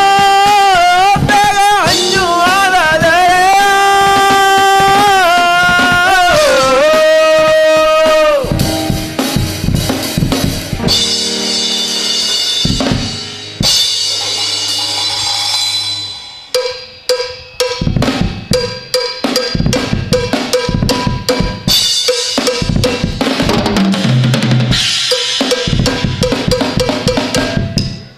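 Live band music: a male singer holds one long, wavering sung note over the band for about the first eight seconds, then the band plays on without voice. From about halfway through, the drum kit takes over in a solo of quick strikes on drums and cymbals.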